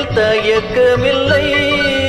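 Karaoke backing track of a Tamil film song: an instrumental melody over a steady beat, between sung lines.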